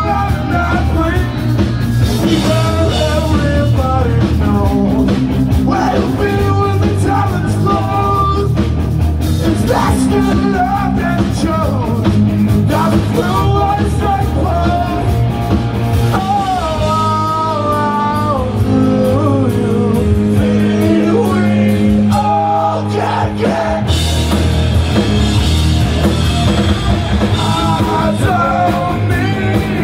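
Punk rock band playing live: electric guitars, bass and drums with sung vocals, loud and full. About two-thirds of the way through the band briefly thins out, then comes back in full.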